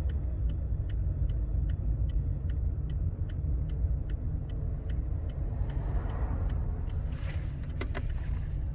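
Volkswagen Polo driving slowly, heard from inside the cabin: a steady low road and engine rumble with a faint regular ticking about three times a second. No squeak or creak comes from the front suspension, whose damaged silent blocks have just been replaced. A brief rustle and a couple of sharp clicks come near the end.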